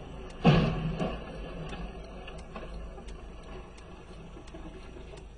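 Collision between a truck and a wheeled tractor, heard from inside a following car: one loud crash about half a second in, a second smaller knock a moment later, then a fading rattle.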